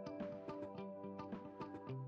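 Background music with a quick, steady rhythm of notes.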